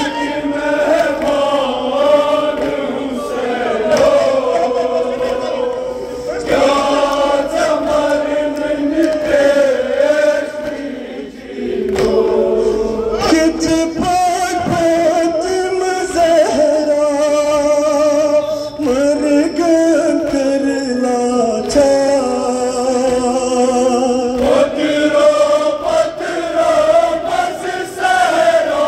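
Kashmiri noha, a Muharram mourning lament, chanted by a group of men's voices in long sung lines, with a brief pause about halfway through.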